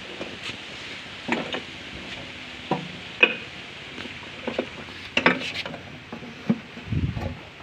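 Stones knocking and scraping against the inside of a tin-bucket wood stove as they are set in by hand: irregular knocks, a few sharper ones, and a duller thump near the end.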